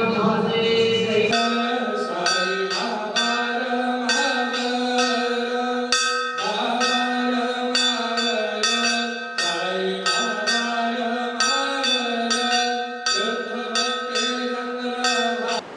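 Temple aarti music: a melody sung in long held notes, with a metal bell or cymbal struck in a steady beat about twice a second. It cuts off suddenly just before the end.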